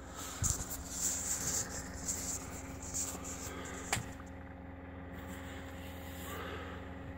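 A pickup truck's cab with the dash lit and the engine not turning over: a faint steady electrical hum, rustling as the phone is handled, and one sharp click about four seconds in.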